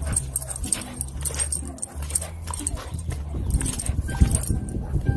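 A dog whimpering and yipping, with many sharp clicks and knocks throughout over a low steady hum.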